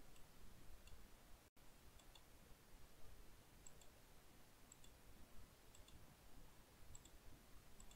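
Faint computer mouse clicks over near-silent room tone. There are about seven of them, each a quick double tick, spaced a second or so apart.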